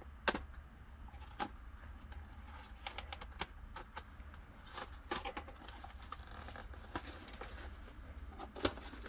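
A shipping package being opened and handled by hand: irregular clicks, scrapes and rustles. The sharpest snap comes about a third of a second in, and another near the end.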